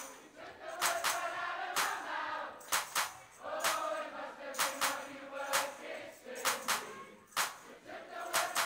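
Crowd singing the chorus together in a rock club, with no lead vocal. A sharp hit cuts through about once a second, keeping a slow beat under the voices.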